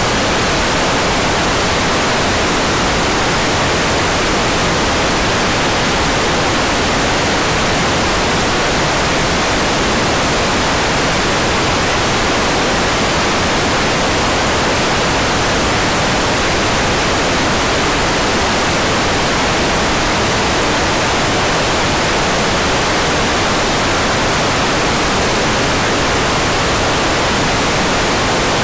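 Hair dryer running continuously, a steady, even rush of blown air that does not change.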